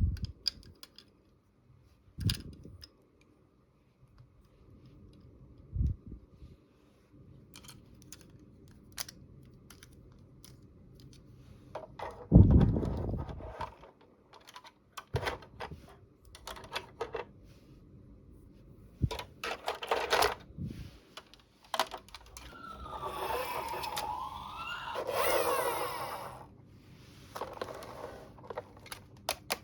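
Small plastic toys and packaging being handled: scattered clicks and taps, a heavier knock about twelve seconds in, and a stretch of rustling and scraping a little past twenty seconds.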